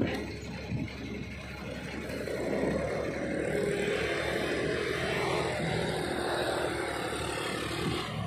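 Diesel engine of a tipper truck loaded with mud, running as it drives off on a dirt road, getting a little louder about two and a half seconds in and then holding steady.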